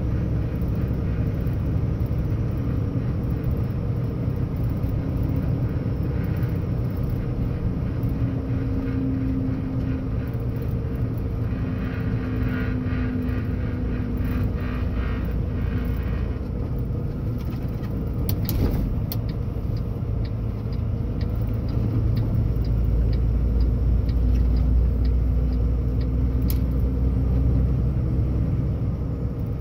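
Kenworth W990 truck's diesel engine running steadily at low road speed, heard from inside the cab with tyre and road noise. A sharp click a little past halfway is followed by a run of light, even ticks, and the low rumble grows louder in the last third.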